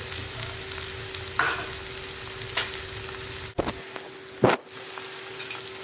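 Salted-egg-yolk sauce with onion and chili sizzling gently in a nonstick frying pan, over a steady hum. Two sharp clicks come past the middle, and the second is the loudest.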